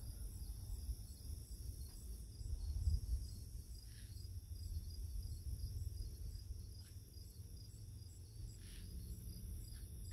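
Crickets and other insects chirping in a steady, pulsing chorus, high-pitched, over a low rumble.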